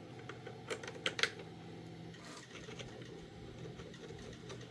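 Light clicks and taps of 3D-printed PLA plastic parts being handled and fitted together, a few faint clicks with the clearest about a second in, over a faint steady hum.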